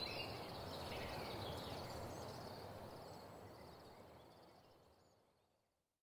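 Outdoor nature ambience: a steady noisy background with birds chirping, fading steadily away to nothing.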